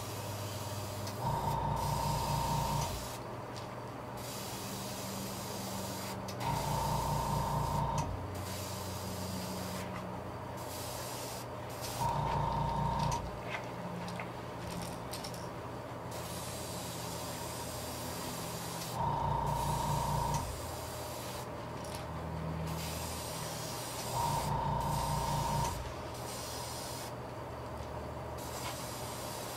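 Airbrush spraying paint, with the steady hum and hiss of its air compressor. Five louder surges of a second or two each, with a whine, come about every five seconds as passes are sprayed.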